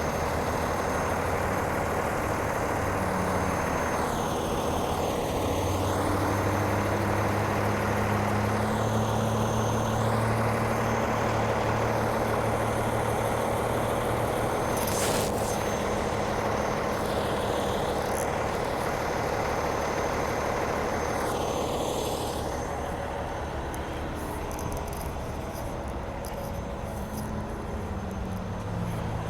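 Heavy truck's engine running steadily under road noise, with a couple of brief clicks; the engine note dips slightly near the end.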